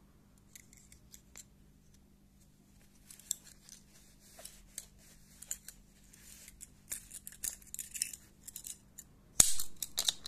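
Okapi 907 lock-back folding knife being worked by hand: the blade scrapes along the back spring with a run of small metallic clicks that builds up after a few quiet seconds. One sharp, loud snap comes near the end.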